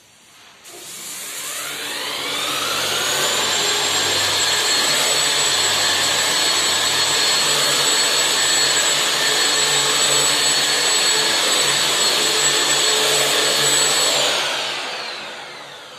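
Electric drywall sander with a dust-extraction hose, worked against a plastered ceiling: the motor starts with a rising whine, runs steadily for about ten seconds, then winds down with a falling whine near the end.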